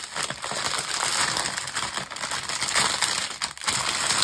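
Small clear plastic bags of diamond-painting drills crinkling and rustling as they are handled and packed away.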